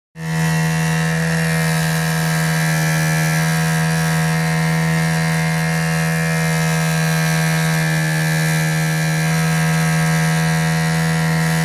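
Small electric motor of a home-built Gérard Morin-style pump switched on from a 12-volt power supply, starting abruptly and then running with a steady, unchanging hum.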